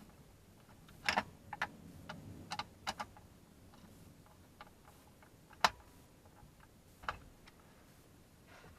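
Irregular small clicks and taps of a screwdriver and screws against plastic dash trim, as the HVAC control unit is screwed back into the dash. The sharpest tap comes a little past halfway.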